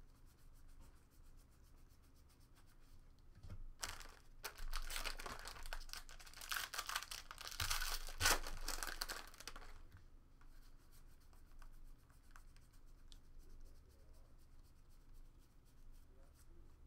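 Foil wrapper of a 2018 Score Football card pack being torn open and crinkled, starting about four seconds in and lasting about six seconds. Before and after it, faint clicks of trading cards being flicked through by hand.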